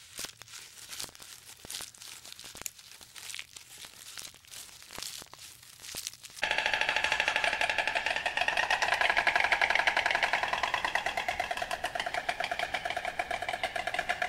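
Giraffes pulling and chewing leaves from hanging branches: scattered crackles and snaps. About six seconds in, a sudden, loud, rapid, even buzzing pulse with a tone to it takes over and runs on.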